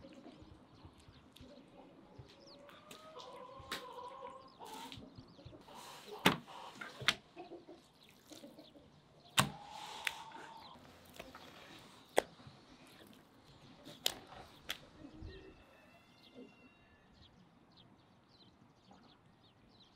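Yard ambience of hens clucking and small birds chirping, broken by about six sharp knocks and clatters in the middle stretch.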